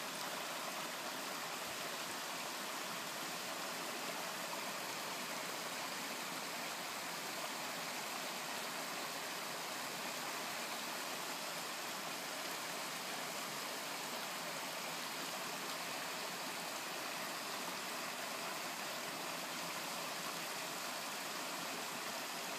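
Shallow stream rushing steadily over a rocky riffle.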